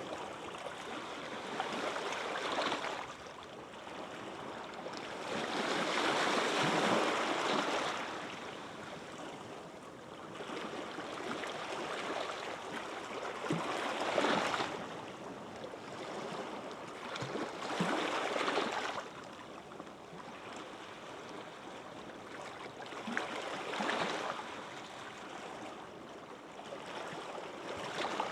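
Small waves breaking gently on a beach, each one swelling into a soft rush and then washing away, every few seconds.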